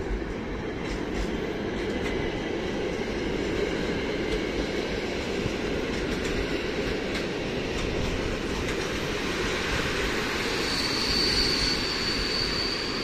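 PKP Intercity passenger coaches rolling past on the rails, a steady rumble of wheels on track. A thin, high, steady squeal joins in for the last two or three seconds.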